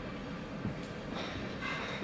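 Steady low rumble of room ambience, with a brief faint higher sound about a second and a half in.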